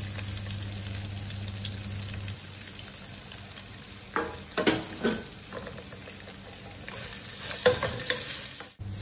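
Sliced onions sizzling as they fry in hot coconut oil in a metal pan. A wooden spatula stirs and scrapes them against the pan in short bursts about halfway through and again near the end.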